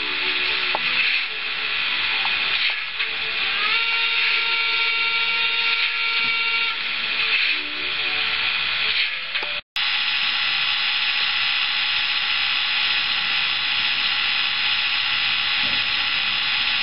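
Steam-locomotive sound from an ESU digital sound decoder in an HO-scale Roco BR 03.10 model: a steady hiss of steam, with a whistle-like tone held for about three seconds a few seconds in. The sound drops out for an instant about ten seconds in, then the steady hiss goes on.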